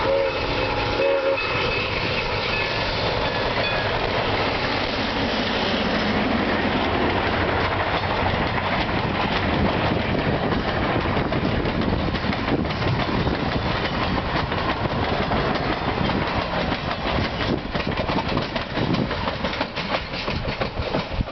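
Grand Canyon Railway steam locomotive sounding its whistle briefly near the start, then passing close by with its passenger train. A steady rumble of steel wheels on the rail and a clickety-clack of cars rolling past carry on throughout.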